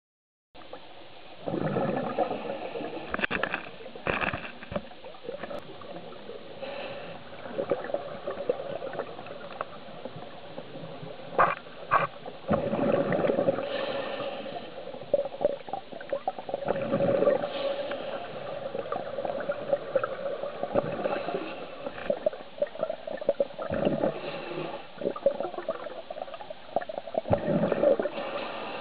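Scuba diver breathing through a regulator underwater: a gurgling rush of exhaled bubbles every few seconds over a steady hiss.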